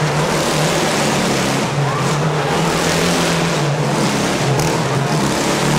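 Motorcycle engine running hard at steady revs as it circles the vertical wooden wall of a Wall of Death drome.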